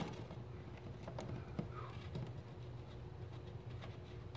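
Faint scratching and light clicking of scribes, a small compass with a pencil, drawn along a baseboard molding as the pencil traces the molding's shape onto paneling, over a low steady hum.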